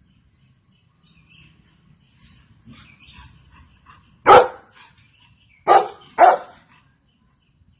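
Golden retriever barking: three loud single barks, the first about four seconds in and then a quick pair about a second and a half later.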